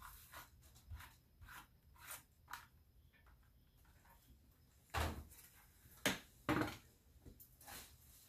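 Handling sounds as washed greens are tipped from a plastic basket and spread by hand over a wire drying screen: light rustles and clicks, with three louder knocks over about a second and a half a little past the middle.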